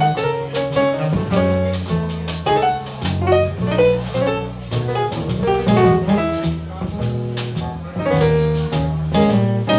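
Jazz music played back over Piega Line Source loudspeakers: melody notes over a moving bass line, with sharp percussive strokes throughout.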